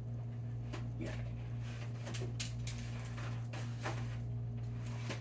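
Scattered light clicks and taps of art supplies being picked up and sorted, about half a dozen spread unevenly, over a steady low electrical hum.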